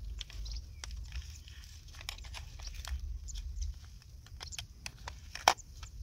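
Small plastic clicks and rustling as fingers handle a toy RC car's battery compartment and its small battery pack and plug, with one sharp, louder click about five and a half seconds in. A low rumble runs underneath.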